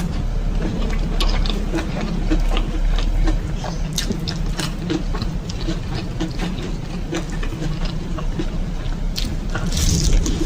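Close-miked chewing and mouth sounds of someone eating: a stream of small irregular clicks and smacks over a steady low rumble.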